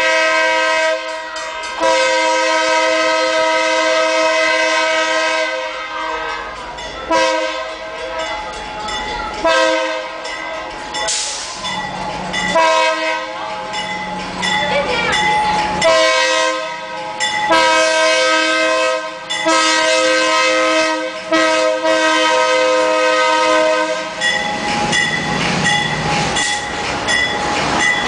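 BNSF diesel locomotive's air horn sounding a chord of several notes in a repeated series of long and short blasts as the freight train approaches. Near the end the horn gives way to the locomotive's engine and the cars' wheels as the train passes close by.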